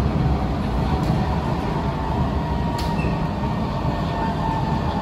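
Inside a Kawasaki–CSR Sifang C151A metro train running between stations: a steady low rumble of wheels on track under a faint steady whine from its IGBT-VVVF traction motors, with a single short click midway.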